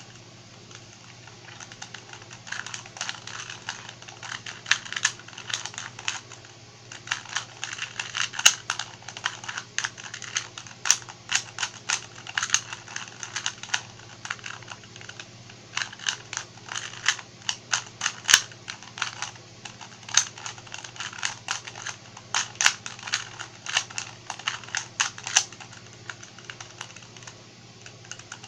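A 2x2 Rubik's cube being turned by hand: runs of quick plastic clicks and clacks as its layers are twisted, broken by short pauses.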